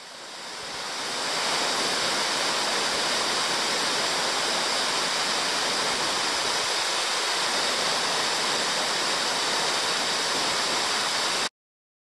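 Waterfall: a steady rush of falling water that swells up over the first second or so and cuts off abruptly near the end.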